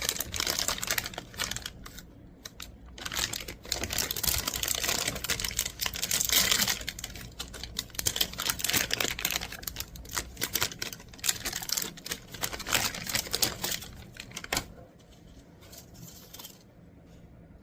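Hands handling small hard objects: dense, irregular clicking, tapping and rustling that dies down to a few faint clicks about fourteen seconds in.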